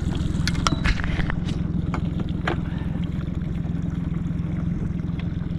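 Boat's outboard motor running steadily at trolling speed, a low even hum. A few sharp clicks and knocks sound over it in the first couple of seconds.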